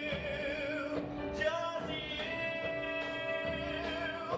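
Live musical-theatre singing: a voice holds long notes with vibrato over a band accompaniment, with regular drum and cymbal hits.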